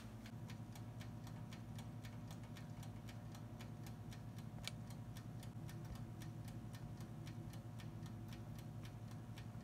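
Mechanical wind-up timer of an air fryer oven ticking evenly, several ticks a second, while the oven runs with a steady low hum.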